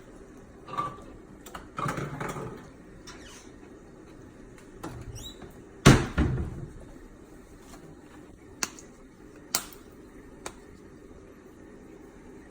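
Kitchen handling noises while seasoning shrimp: scattered knocks and light clicks of containers and utensils being picked up and set down, with one sharp knock about six seconds in, over a faint steady hum.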